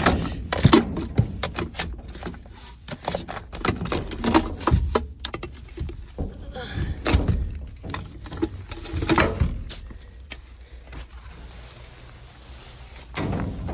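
Plastic bags and packaging rustling and crinkling, with knocks and clatter, as a gloved hand rummages through discarded store goods in a dumpster. It goes quieter for a few seconds near the end.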